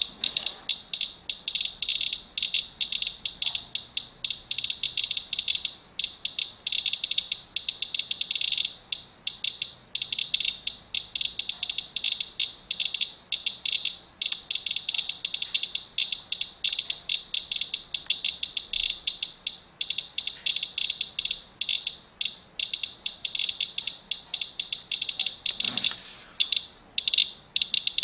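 Medcom Inspector Geiger counter chirping rapidly, several short high chirps a second at irregular spacing, each one a detected count. The dense clicking is a raised count rate from a paper towel soaked in rainwater, which the owner takes for radioactive fallout.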